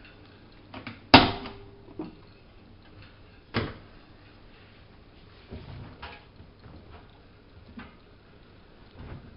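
Two sharp knocks, the louder about a second in and another at about three and a half seconds, with softer clunks scattered between and after.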